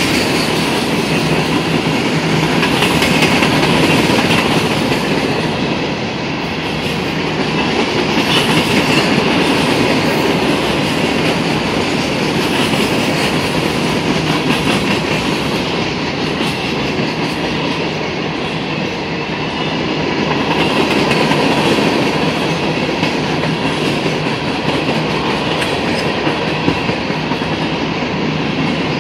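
Cars of an empty CSX rock train rolling past: a loud, steady rumble and rattle of steel wheels on the rails that swells and eases slightly as the cars go by.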